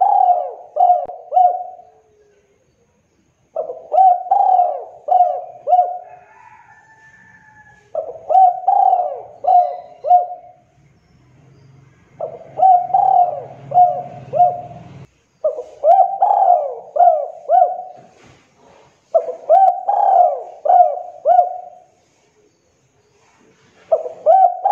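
Spotted dove (tekukur) cooing: a phrase of four or five short, throaty coos, repeated about every three to four seconds, six times over.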